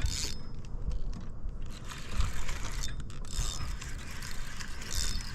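Fishing reel being cranked fast, its gears ratcheting, as a hooked largemouth bass is reeled in. Wind rumbles on the microphone.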